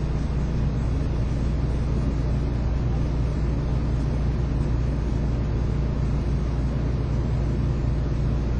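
A steady low rumble with no distinct knocks or clicks.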